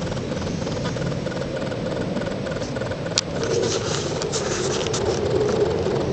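Steady roar of military fighter jets flying unseen above the clouds, growing a little louder after a sharp click about three seconds in.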